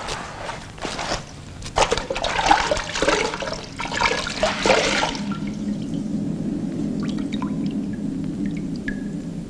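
Wet squelching and sloshing as hands squeeze and knead a wet mass in a basin. About halfway through it gives way to a low, steady drone with a few faint ticks.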